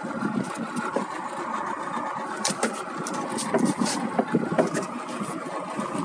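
Small boat's engine running steadily, with scattered knocks and clicks over it.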